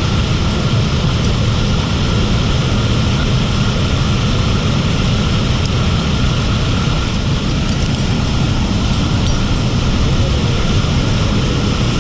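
Loud, steady roar of rushing waterfall water.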